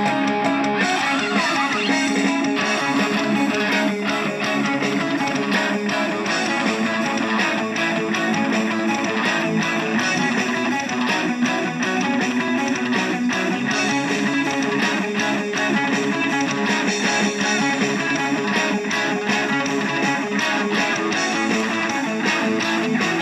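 Band music led by strummed electric guitar with bass guitar underneath, playing at a steady level with a regular beat.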